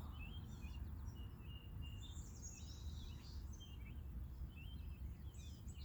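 Small birds chirping in short, scattered calls, over a low steady rumble.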